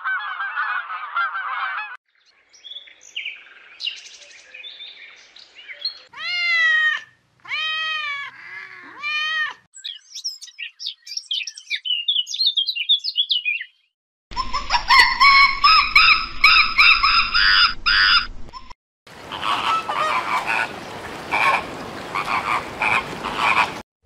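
A series of separate animal sound clips run one after another. Geese honk for about the first two seconds, then come three arching calls around the middle, high chirps, and two loud stretches of mixed calls and noise near the end.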